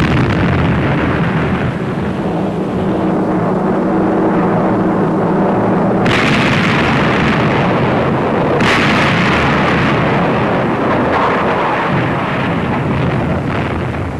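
USS New Jersey's 16-inch main guns firing broadsides: three heavy blasts, at the start, about six seconds in and about eight and a half seconds in, each followed by a long rolling rumble.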